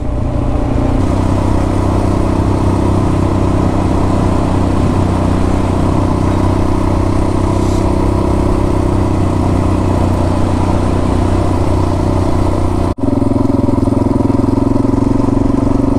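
Adventure motorcycle engine running at a steady cruise, with road and wind noise. About thirteen seconds in the sound cuts out for an instant, and the engine note changes after it.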